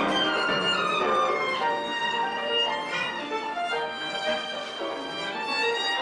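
A violin playing a melody over piano accompaniment, held notes that change every half second or so.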